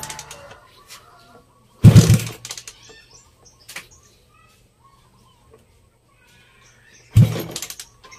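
Two brief loud noises, one about two seconds in and one about seven seconds in, each fading quickly. Small birds chirp faintly between them.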